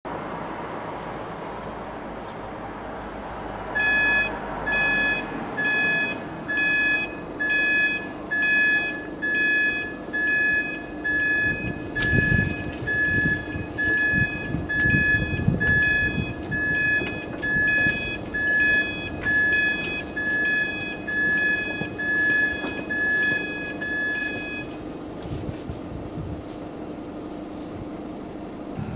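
Level crossing audible warning alarm beeping: a single high tone pulsing on and off about one and a half times a second, starting a few seconds in and stopping near the end, warning road users of an approaching train. A low steady hum runs beneath it, with low rumbling and clicks about halfway through.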